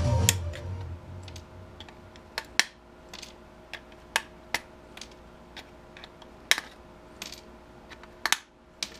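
Sharp, irregular clicks and snaps of pliers nipping and breaking components off a furnace ignition control circuit board, about a dozen over the stretch.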